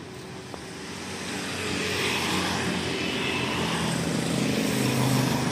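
A motor vehicle engine on the road draws nearer, growing louder over the first two seconds and then running steadily close by.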